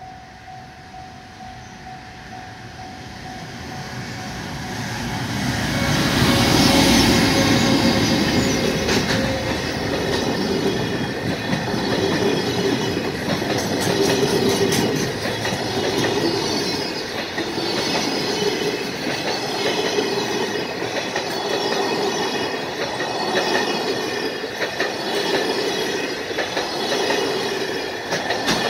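Container freight train hauled by a JR Freight EF510 electric locomotive passing close at speed. Its rumble builds to the loudest point about seven seconds in as the locomotive goes by, then the container wagons clatter past with a regular swell about every two seconds and a high wheel squeal.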